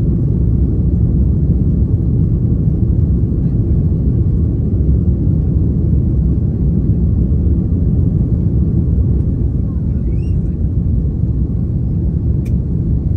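Steady low roar of an Airbus A330's cabin during the climb after takeoff: engine and airflow noise heard from inside the cabin at a window seat behind the wing.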